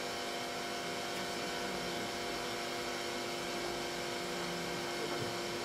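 Steady hiss with a low electrical hum, and no other clear sound.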